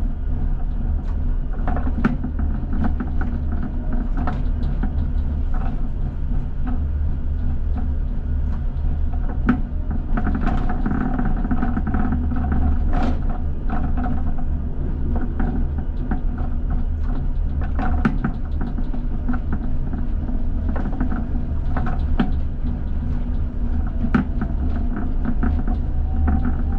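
ČKD Tatra T6A5 tram running along the track, heard from the driver's cab: a steady low rumble with frequent clicks and knocks from the wheels on the rails. Near the end a whine rises in pitch as the tram picks up speed.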